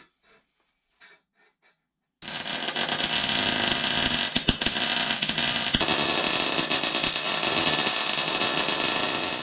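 MIG welder arc crackling steadily while welding thin-walled stainless steel tubing with stainless wire. It starts suddenly about two seconds in, after a few faint taps, and stops near the end.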